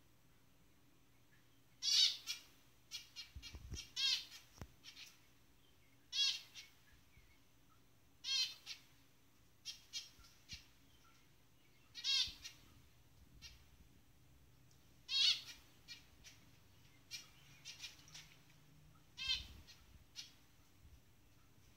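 Zebra finch calling: short calls, the loudest repeated every two to four seconds, with softer quick chirps in between.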